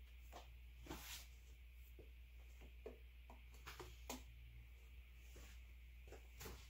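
Near silence: faint, scattered small clicks and rustles of a hand handling hoses and fittings on the engine, over a low steady hum.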